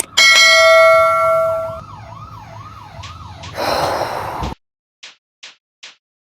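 A loud bell-like ring over a warbling, siren-like tone that rises and falls about two or three times a second. Then comes a short burst of noise, the sound cuts off suddenly, and a few faint ticks follow.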